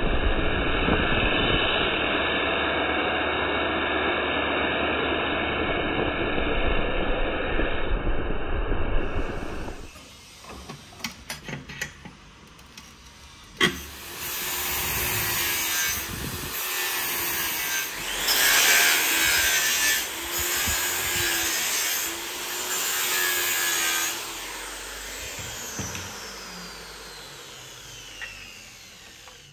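Angle grinder grinding a steel knife blade clamped in a vise: a steady whine over a rough grinding noise for about ten seconds, then the grinder stops. After a few clicks and a sharp knock, an abrasive is worked by hand along the blade on the bench in about five long, rough strokes.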